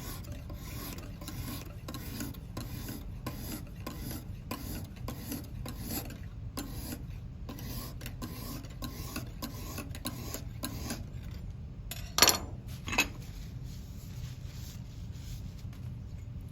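Lansky sharpening hone stroked back and forth along a steel knife edge, stone rasping on the blade in quick, even strokes of about two to three a second. About twelve seconds in the stroking stops and two sharp knocks follow.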